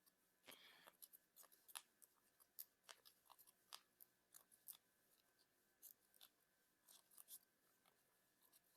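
Near silence with faint, irregular small clicks and rustles, a few every second.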